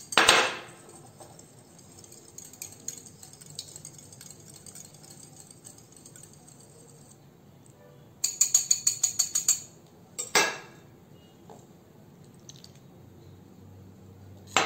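Wire whisk beating eggs in a glass bowl: a quick run of rhythmic clinking strokes, about seven a second, lasting about a second and a half past the middle. Sharp clinks of metal on glass come at the start, just after the whisking and near the end.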